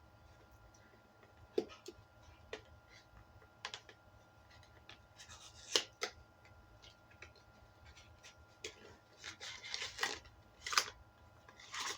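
Unboxing handling noise: scattered clicks and taps with short crinkly rustling bursts from the packaging. The rustling is busiest about five seconds in and again in the last few seconds.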